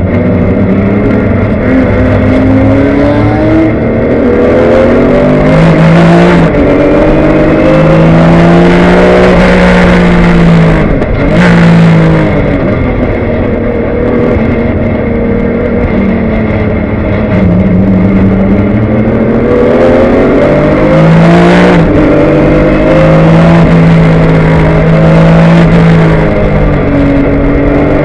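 2003 Porsche 996 GT3 Cup's flat-six engine heard from inside the cockpit, accelerating hard through the gears: the pitch climbs and then drops back at each gear change, over and over.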